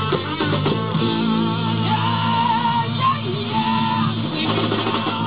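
Live rock band playing: a custom purpleheart DP electric bass holds a steady low line under electric guitar and drums, with singing over it.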